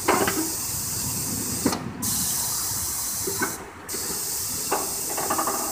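Compressed air hissing from the pneumatic control valves as the air cylinders raise and lower the snow plow blade. It comes as three long hisses, each cut off sharply, with short breaks about two seconds in and again near four seconds.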